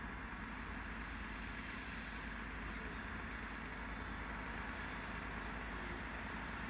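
Steady low engine hum of parked fire trucks idling, with a few faint high bird chirps over it.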